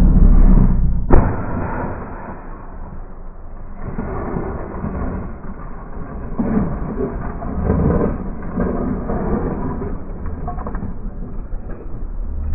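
Muffled rumbling and scraping of a sport motorcycle crashing and sliding on its side along the asphalt, swelling and fading unevenly.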